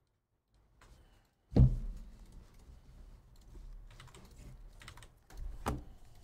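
Keys being pressed on a computer keyboard, a scatter of short clicks. A hard thump comes about one and a half seconds in, and another sharp hit near the end.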